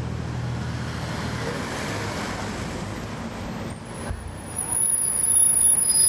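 A 2011 NABI 40-SFW transit bus with a Cummins ISL9 diesel engine, heard from inside the cabin, running with a steady low drone. About four seconds in the sound dips briefly, then grows louder, as when the bus pulls ahead under power. A thin high whine joins about three seconds in.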